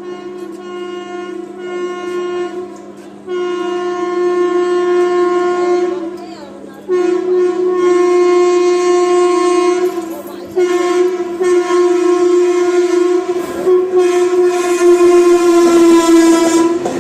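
WAP-4 electric locomotive's horn honking almost continuously in four long blasts with brief breaks, growing louder as the train approaches. The rumble and clatter of the train rise under the horn in the last few seconds.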